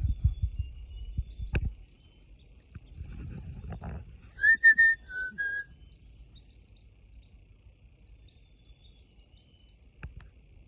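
Chickadees calling in the trees: faint high chips throughout, and a louder whistled phrase of a few short notes, stepping down in pitch, about four and a half seconds in.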